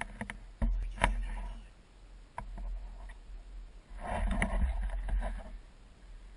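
Wind rumbling on the microphone, with a few sharp clicks and knocks in the first couple of seconds and a louder rustling patch about four seconds in.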